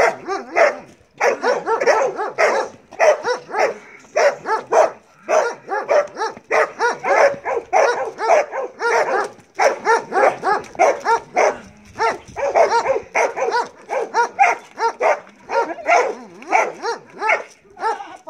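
Belgian Malinois barking rapidly and continuously in volleys with brief pauses: the drive barking of a dog being worked up by a decoy in protection bite training.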